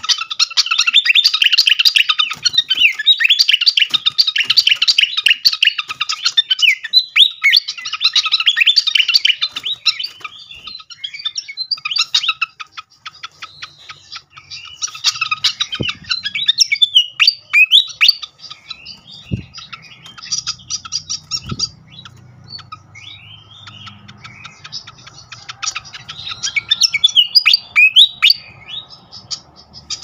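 Pied fantail singing: dense, rapid, squeaky chattering twitters for about the first ten seconds, then separate short twittering phrases with pauses between them. A faint low hum sits underneath in the second half.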